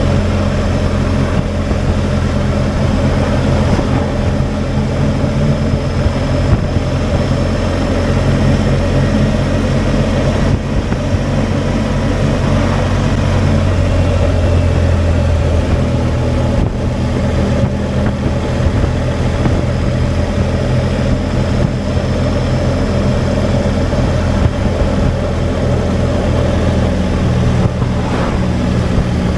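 Motorcycle engine running steadily at cruising speed, with wind and road noise.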